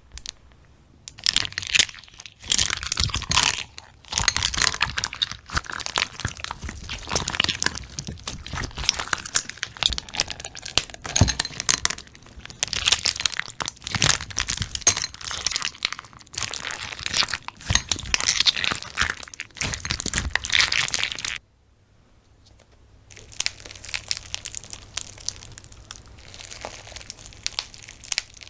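Slime being squished and kneaded by hand: a dense run of small crackles and pops. It stops abruptly about three quarters of the way through and resumes, softer, a second or two later.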